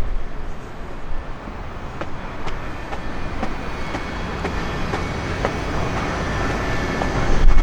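Steel wheels of a passing rail vehicle rolling on track, with clicks over the rail joints and a thin high squeal, growing louder toward the end.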